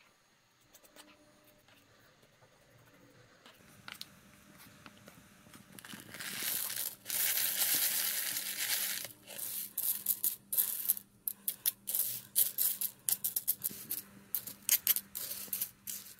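Whole roasted coffee beans poured from a foil bag into a wooden mold onto hardened epoxy, a continuous rattling pour for about three seconds starting some six seconds in. Then the beans are spread around with a wooden stirring stick, giving many quick separate clicks and clatters.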